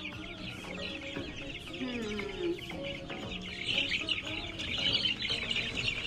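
A brooder full of young meat chickens peeping and chirping in a dense, continuous chorus that grows louder about two-thirds of the way through.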